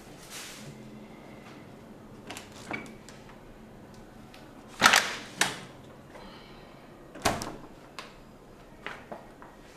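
Refrigerator door and containers being handled: a string of sharp knocks and clacks, the loudest pair about five seconds in.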